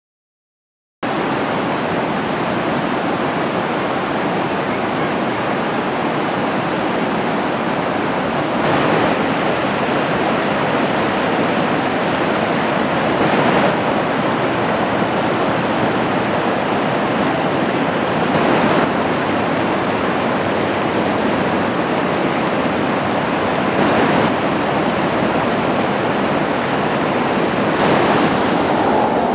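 Wenatchee River rapids rushing steadily, starting about a second in, with a brief swell every five seconds or so.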